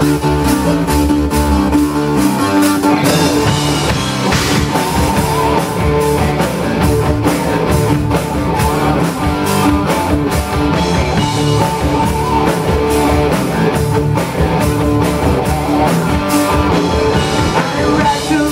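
Live rock band playing an instrumental passage: distorted electric guitars, bass guitar and a drum kit keeping a steady beat.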